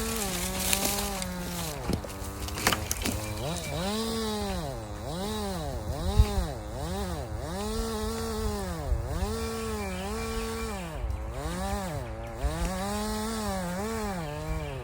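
A two-stroke chainsaw running at high revs, its engine note dipping and recovering over and over, a little more than once a second, as the bar is worked against the wood under load.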